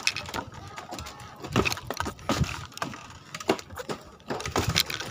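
Footsteps in flip-flops on a bamboo-slat bridge: uneven clacks of the bamboo slats underfoot, about two a second.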